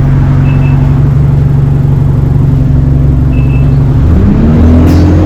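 ADL Enviro 200 bus drivetrain heard from on board: a steady low engine hum, then about four seconds in the bus pulls away and the pitch rises as it accelerates.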